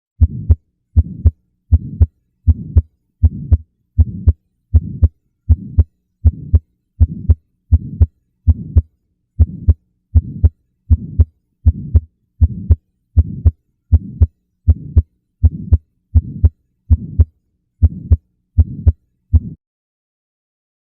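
Recorded human heartbeat, regular at about 75 beats a minute, each beat a sharp low thud followed by a softer, longer sound. It stops about a second and a half before the end.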